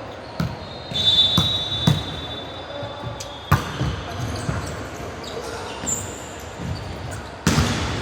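A basketball bouncing on a court in irregular thuds, with a high-pitched squeak lasting about two seconds, starting a second in, and a shorter squeak near the end, typical of sneakers on the floor.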